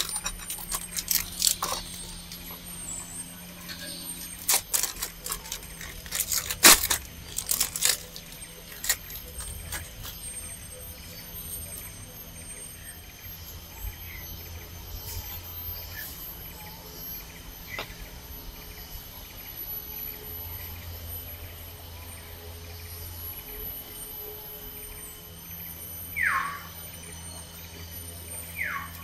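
Forest ambience: steady high-pitched insect trills with a faint chirping about twice a second. In the first nine seconds or so there is a run of sharp clicks and clinks, and near the end come two short falling whistled calls.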